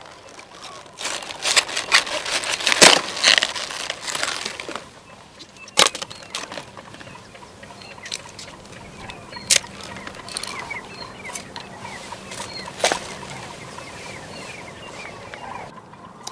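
A quick run of sharp clicks and splashes over the first few seconds, then single sharp knocks now and then, with birds chirping in short rising calls in the later part.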